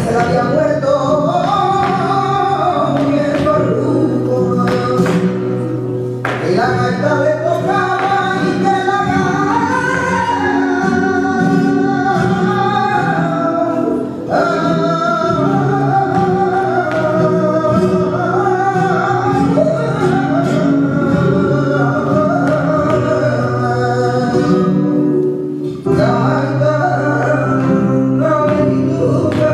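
Flamenco music: a solo voice sings in long, wavering lines over steady accompaniment.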